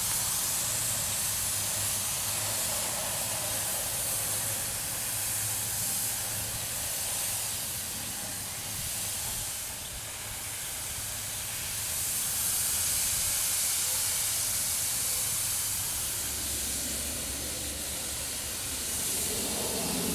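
Air-powered paint spray gun hissing steadily as it sprays primer, swelling and easing a little as it passes, with a faint low hum underneath.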